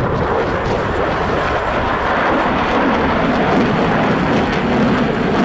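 Military aircraft flying over the airfield: loud, steady engine noise that thickens slightly in its lower range about two seconds in.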